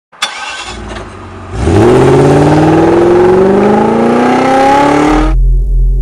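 Car engine sound effect: a brief start-up near the beginning, then the engine revs up with a steadily rising pitch for about four seconds and cuts off suddenly, leaving a low rumble.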